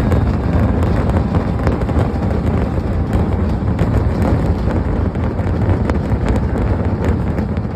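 Dense barrage of fireworks going off: a continuous low rumble of overlapping explosions with many sharp cracks on top.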